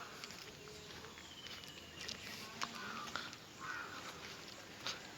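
Outdoor ambience with a few short bird calls, two of them about a second apart, and scattered footsteps and clicks.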